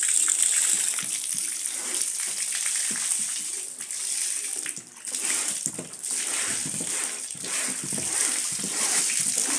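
Water splashing and sloshing as a carpet is rinsed by hand in fabric-softener water, with a brief lull about five seconds in.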